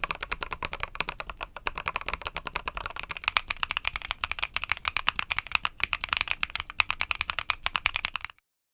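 Fast, continuous typing on a mechanical keyboard with Haimu Midnight switches mounted on an aluminum or steel plate: rapid, dense keystroke clacks that stop abruptly near the end.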